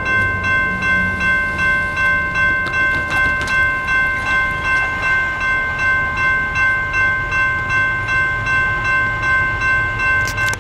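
Railroad grade-crossing warning bell ringing steadily at about two and a half strikes a second as the crossing signals activate; it cuts off suddenly at the very end.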